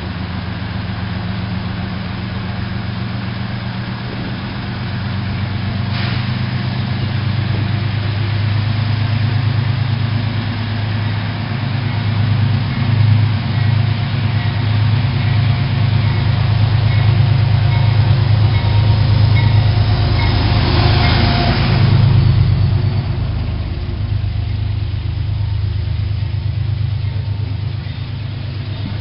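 A Metro-North train's diesel locomotive drones steadily and grows louder as the train approaches. It is loudest around 20–22 seconds in as it comes alongside, then the passing coaches leave a lower rolling rumble.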